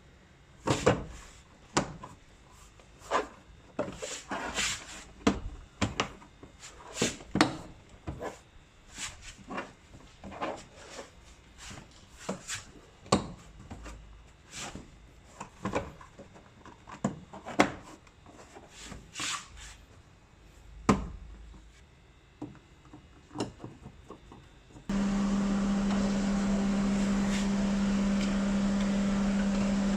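Irregular plastic clicks, snaps and knocks as a car's power window switch assembly is handled and fitted back. Near the end a steady hum with one low tone starts abruptly and holds.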